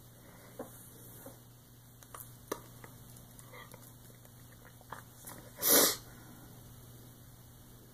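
A short, sharp breath noise from a person, a little under half a second long, about six seconds in, over a steady low hum and a few faint clicks.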